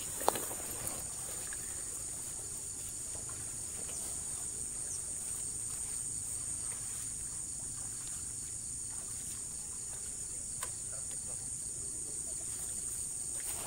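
Steady high-pitched insect chorus, such as crickets, with one sharp click just after the start.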